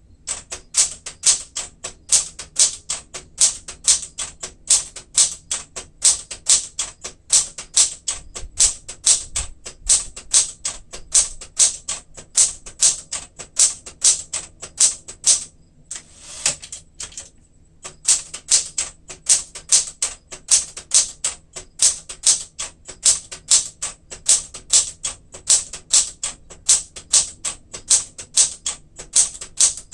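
1967 Smith-Corona Super Sterling manual typewriter typing steadily, with type bars striking at about two to three keys a second. The typing pauses for about two seconds midway.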